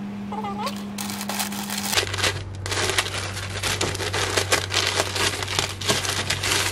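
Tissue paper rustling and crinkling as hands pull it open inside a shoe box, starting about two seconds in and going on in quick irregular crackles.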